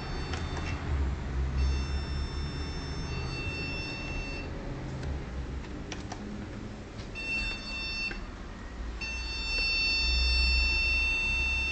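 A PC's motherboard speaker sounding long, high, steady beeps, the startup warning of a computer that fails to boot: a beep of about three seconds, a shorter one of about a second, then another long one near the end. A low, steady hum runs underneath.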